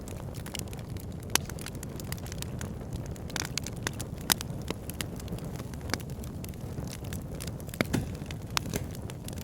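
Wood logs burning in a fireplace: a steady low rumble of flame under a constant scatter of sharp crackles and pops, three of them noticeably louder.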